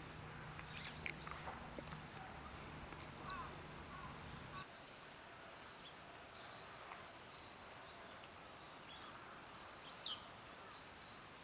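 Grey-spotted flycatcher giving short, high, thin calls at irregular intervals, with a louder sharp downward call about ten seconds in. A low steady hum underneath stops about four and a half seconds in.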